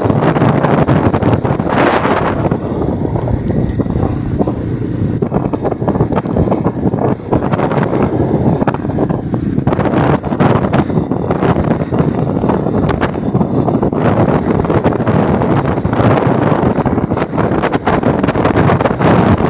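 Wind rushing and buffeting over the microphone of a camera carried on a moving motorcycle, with the motorcycle's engine running underneath.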